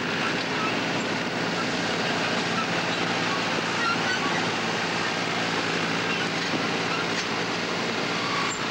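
Crawler bulldozer's diesel engine running steadily as the dozer pushes a fire line through soil and leaf litter.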